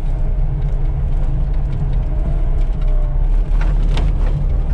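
A vehicle's engine running steadily as it drives along a rutted dirt road, with a few short knocks or rattles near the end.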